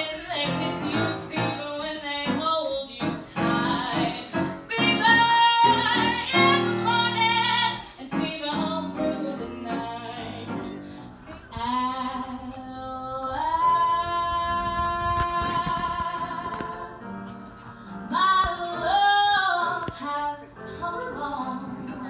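A female mezzo belter singing live with piano accompaniment, in two song excerpts spliced together about eight seconds in. In the second excerpt she holds one long note for about three seconds, then sings on.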